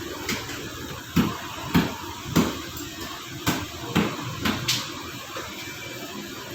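A series of about eight sharp knocks at irregular intervals over a steady low background noise; the knocks stop about five seconds in.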